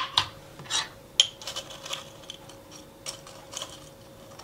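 Small kitchen items being set down and handled on a countertop: a sharp knock at the start and another about a second in, then a run of fainter ticks and clinks.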